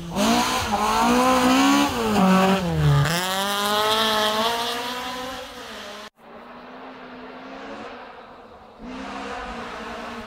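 Rally car engine revving hard past spectators, its pitch climbing through the gears, dropping sharply about two to three seconds in as the driver lifts, then climbing again. About six seconds in the sound cuts suddenly to a quieter, steadier engine note.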